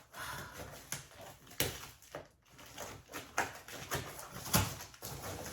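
Rustling of packaging being handled, with several sharp clicks and knocks, the loudest about a second and a half in, a little past three seconds and near the end.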